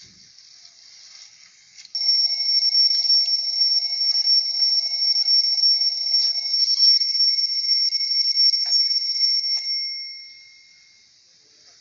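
Alarm clock sounding a steady high-pitched tone that starts suddenly about two seconds in and fades out near the end.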